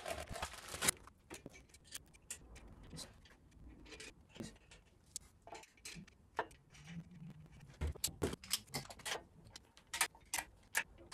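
Light, irregular clicks and taps of small metal parts and tools being handled on a workbench and against an engine case.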